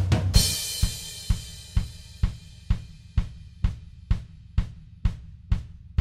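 Background music: a cymbal crash, then a sparse, steady drum beat of about two hits a second.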